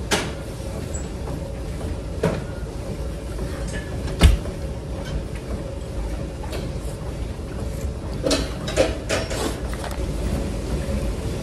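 A hip adductor/abductor machine being adjusted: scattered clicks and knocks from its leg pads, with one low thump a little past four seconds in as the loudest and a quick cluster of clicks near the end. A steady mechanical hum runs underneath.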